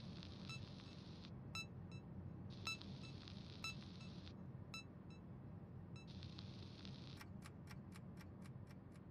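Faint electronic satellite-signal sound effects: short beeps at irregular intervals over a low hum, broken by bursts of static, then a quick run of clicks, about five a second, near the end.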